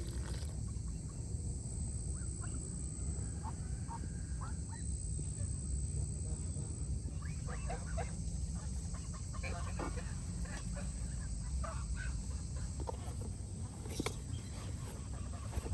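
Birds calling in short, scattered calls, most of them in the second half, over a steady low rumble and a steady high-pitched tone.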